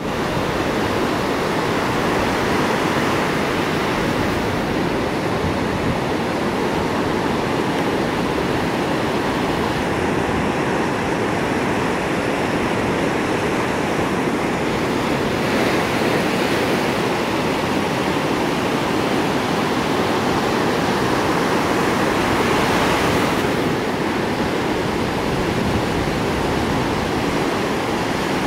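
Pacific Ocean surf: waves breaking and washing up a sandy beach, a steady rush of noise whose tone shifts slightly a few times.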